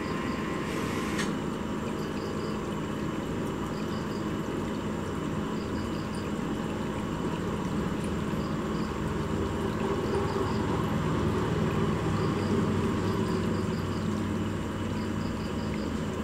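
Aquarium pump running: a steady low hum with a rushing water noise, swelling slightly about two-thirds of the way through.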